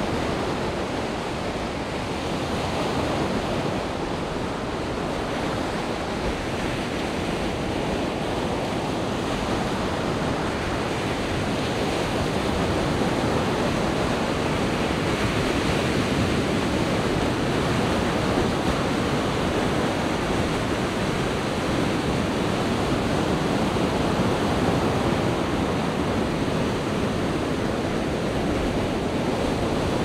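Sea waves breaking and washing up a sandy beach: a continuous, even rushing of surf that grows a little louder partway through.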